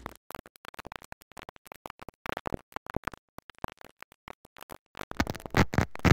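Old-film crackle sound effect: irregular clicks and pops like a worn film soundtrack, sparse at first and growing denser and louder about five seconds in, where a low hum joins.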